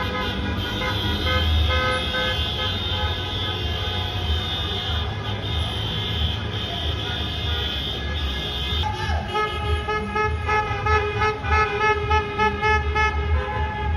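Several car horns honking at once in slow street traffic, long held blasts overlapping. About two-thirds of the way in they turn to quick, repeated short beeps.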